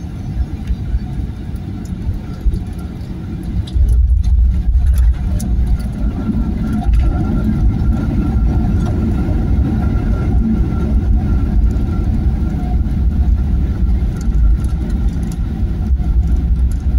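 Cabin noise of a Boeing 737-900 on its landing rollout: a steady low rumble that grows suddenly louder about four seconds in, with a thin steady whine coming in shortly after.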